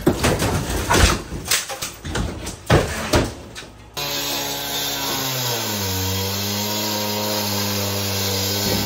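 Hammer blows and crumbling masonry as a concrete-block wall is knocked out, a run of irregular sharp impacts. From about four seconds in, a power tool's motor runs steadily; its pitch drops over the following second or two and then holds.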